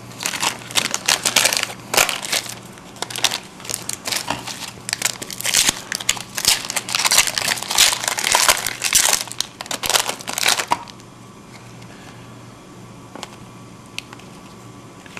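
Wrapper of an Upper Deck Ice hockey card pack being torn open and crumpled: dense crinkling crackles that stop about eleven seconds in.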